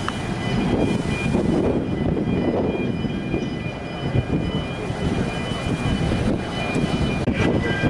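Steady low roar of the Blue Star 2 ferry's engines and thrusters holding the ship against the quay, mixed with gusty wind buffeting the microphone.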